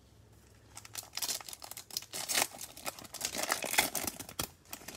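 A foil trading-card pack wrapper being torn open and crinkled by gloved hands: a dense run of sharp crackling rustles starting about a second in and easing off near the end.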